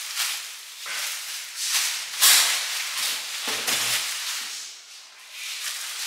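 Thin plastic wrap crinkling and rustling as it is pulled off an oven, in a string of uneven bursts, the loudest about two seconds in.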